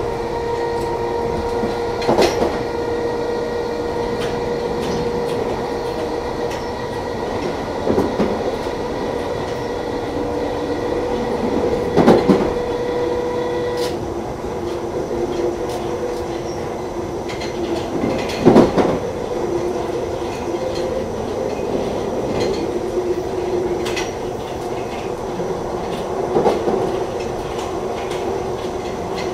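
London Underground 1972 Stock train running between stations, heard inside the carriage: a steady whine that drops out about halfway through, over the rumble of the wheels, with occasional sharp clacks as the wheels pass over rail joints.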